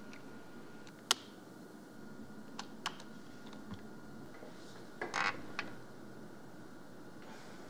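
Scattered computer keyboard key presses: one sharp click about a second in, a few lighter taps, then a short clatter of keys about five seconds in, as the typed sentence is deleted. A faint steady electrical whine runs beneath.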